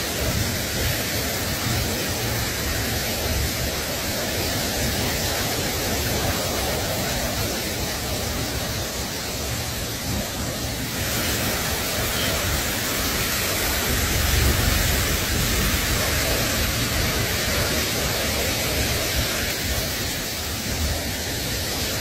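Steady hiss of static-like noise, even across low and high pitches; its upper part grows brighter about halfway through.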